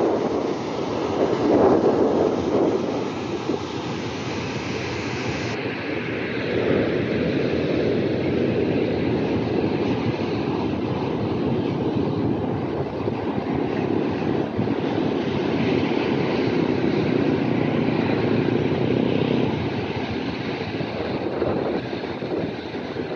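Wind buffeting the microphone, mixed with waves breaking on a sandy beach; a continuous rushing noise that swells and eases a little.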